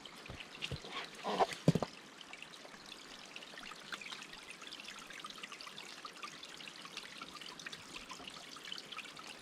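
Water trickling steadily, with a few sharp handling knocks and clicks in the first two seconds as a syringe is filled with water.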